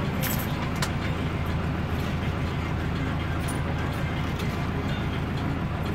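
Air-cooled Deutz F4L912 four-cylinder diesel of an Otokar M-2000 minibus idling steadily, heard from inside the cab. Two brief clicks sound within the first second.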